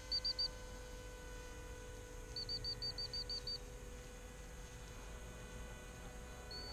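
Short high electronic beeps over a steady electrical hum: three quick beeps at the start, a run of seven about two and a half seconds in, then a continuous beep tone starting just before the end.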